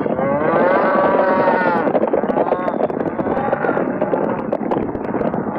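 A herd of cattle stampeding: steady rumble of many hooves, with cattle bellowing over it, one long drawn-out moo rising and falling in the first two seconds and more calls after.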